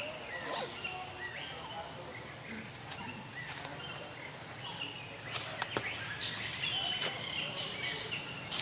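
Outdoor ambience with scattered short, high chirps and squeaks over a steady hiss, and a few sharp clicks a little past the middle.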